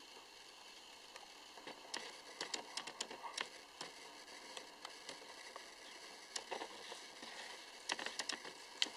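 Guinea pigs chewing lettuce leaves: faint, irregular crisp crunches and clicks that come in quick runs, about two seconds in, again past six seconds, and loudest near the end.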